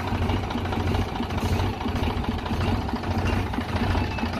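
Sonalika farm tractor's diesel engine running steadily, close by, with a rapid, even low throb.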